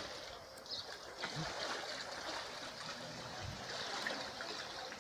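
Shallow river water trickling and sloshing steadily as a man wades through it at about knee to thigh depth.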